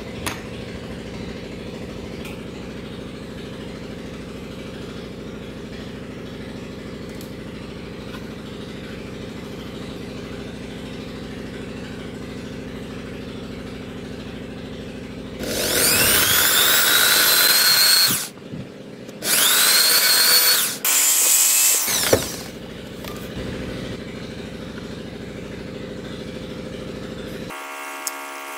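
A small electric power tool run in three short bursts, each starting with a rising whine as its motor spins up, over a steady low hum.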